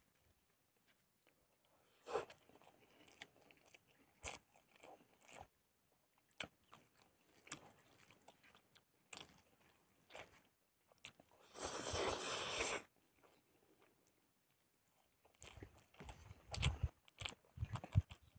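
Quiet hand-eating sounds: fingers mixing rice on a plate, with scattered soft clicks and rustles. About two-thirds through comes a rush of noise lasting about a second, and near the end louder crunching and chewing close to the microphone.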